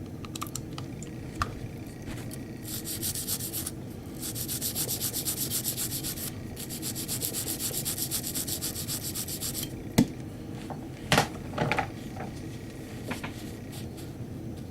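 Nylon brush scrubbing a Glock pistol slide's sight slot, cleaning off old residue. It goes in three runs of quick back-and-forth strokes, about five a second, then gives a few sharp knocks about two thirds of the way through.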